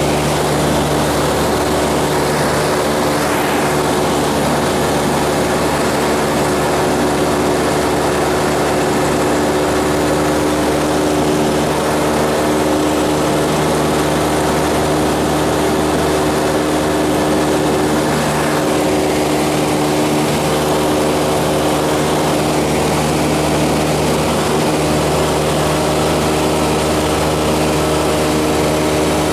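Cessna 172M's four-cylinder Lycoming piston engine and propeller running steadily in cruise flight, heard inside the cabin with a constant rush of air noise.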